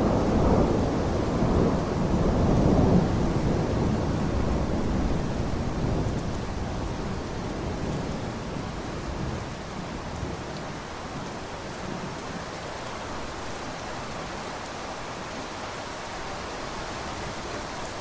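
Steady rain falling, with a low rumble of thunder that dies away over the first ten seconds or so, leaving the even hiss of the rain.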